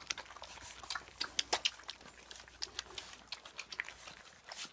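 Goldendoodle puppies munching food from a bowl: many quick, irregular crunches and clicks.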